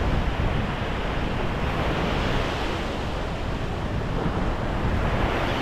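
Gulf surf washing onto the beach, mixed with wind buffeting the microphone, a steady rushing noise heaviest in the low end.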